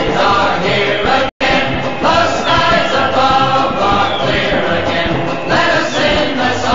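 Choral music: a choir singing over an accompaniment, cutting out for a split second about a second in.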